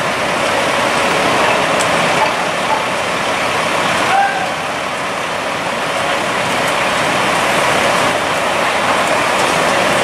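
Parked fire trucks' engines running at a steady idle. The noise is loud and even, with a slight dip about four seconds in.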